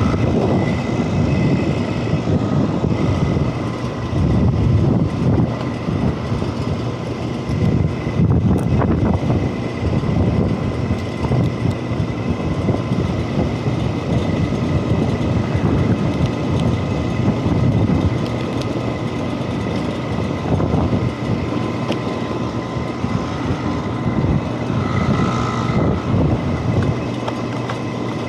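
Rooftop HVAC package units running: a steady mechanical rumble of fan and compressor with a faint high whine over it.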